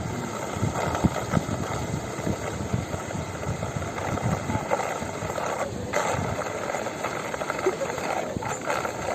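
Floodwater rushing and churning at a dam whirlpool, a steady dense rush with irregular low surges.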